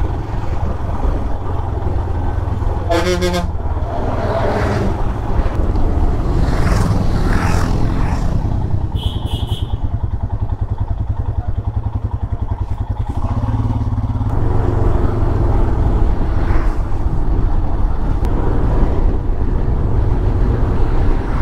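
Motorcycle engine running under steady low wind rumble on a bike-mounted camera while riding up a hill road. There is a short horn honk about three seconds in and another brief pitched tone around thirteen seconds.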